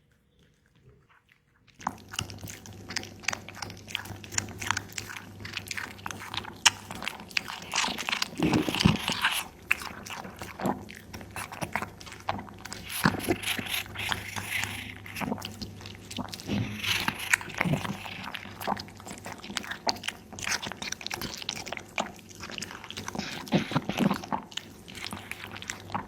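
A cat eating raw meat and bone, with many quick crunching bites and chewing that start about two seconds in and go on without a break. A faint low hum runs underneath.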